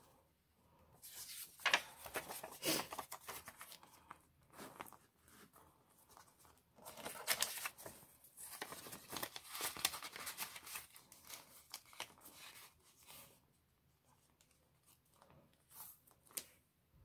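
Paper banknotes and a clear plastic binder pocket rustling and crinkling as bills are slid into the pocket and handled, in irregular bursts for the first dozen seconds, then only a few soft rustles.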